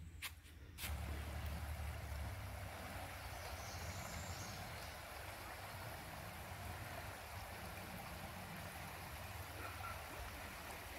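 Shallow, rocky river riffle: water running steadily over and around stones, a steady rushing hiss that comes in about a second in after a couple of brief clicks.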